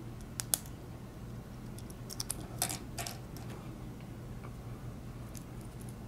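Small sharp plastic clicks and taps as the white clip is worked off an AFL FAST SC fiber-optic connector, a few near the start, a quick cluster around the middle and a couple late on, over a steady low hum.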